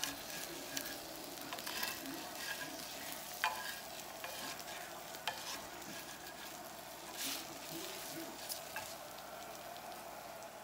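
Food sizzling steadily in a hot frying pan, with a few light clicks scattered through it.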